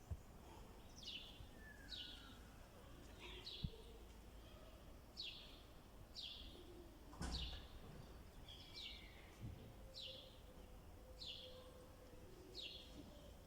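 A small bird chirping over and over: faint, short, high chirps that each drop in pitch, about one a second.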